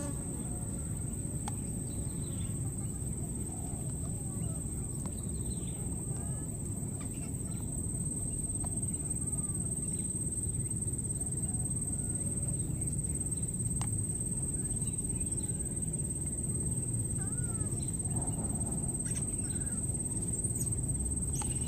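Outdoor ambience: a steady low rumble of background noise under a constant high-pitched whine, with scattered short chirping calls throughout.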